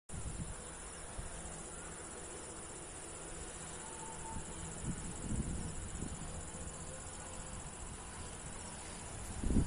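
Insects trilling steadily, a high, fast-pulsing buzz that runs on without a break.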